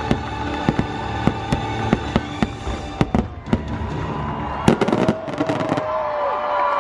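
Show fireworks bursting, several sharp bangs a second, with a dense volley of rapid bangs about five seconds in, over the show's music.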